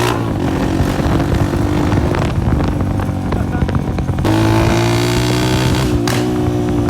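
Honda CG 125's single-cylinder four-stroke engine running loud through a burst silencer, with a few sharp exhaust cracks. The sound steps up abruptly and gets louder about four seconds in.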